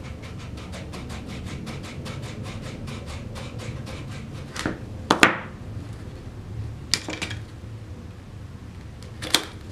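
Cardboard being scuffed with a hand tool in rapid, even scraping strokes, several a second, wearing a shallow recess so a magnet will sit flush. After about four and a half seconds the strokes stop, and a few sharp taps and clicks follow, the loudest about five seconds in.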